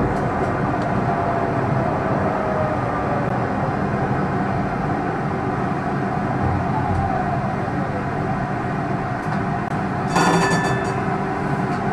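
Tram running along its rails, heard from inside the driver's cab, with a steady rumble and a faint motor whine that falls in pitch around the middle. About ten seconds in, a brief ringing sound rises over the running noise.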